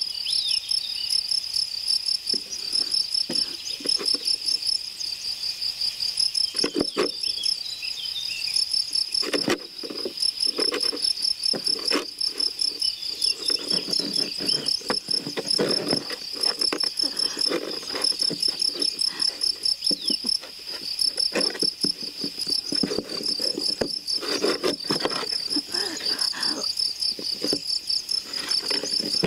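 Crickets chirping in a continuous, evenly pulsing trill, with scattered faint knocks and shuffling underneath.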